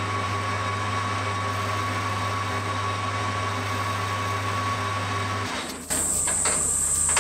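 Metal lathe running in reverse with a steady hum and a thin high whine while a boring bar cuts the back face of a cast venturi on the crankcase. The hum drops away about five and a half seconds in.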